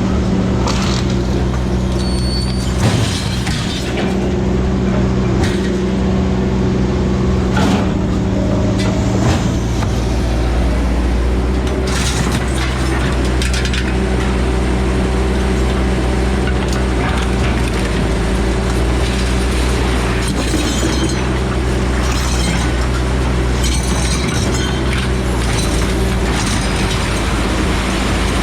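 An engine running steadily, its pitch shifting a couple of times, with frequent clanks and rattles on top.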